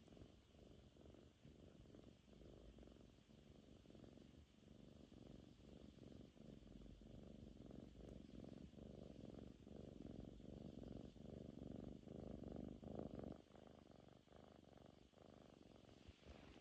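Domestic cat purring softly, the low purr broken by a short pause about once a second as it breathes in and out, growing louder a little past the middle and then easing.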